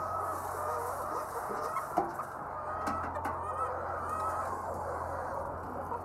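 A large flock of white laying hens clucking and calling at once, many overlapping voices with no single bird standing out. A sharp knock sounds about two seconds in.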